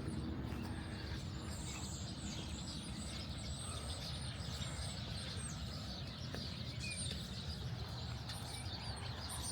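Outdoor ambience: a steady low rumble with small birds chirping, many short high-pitched chirps scattered throughout.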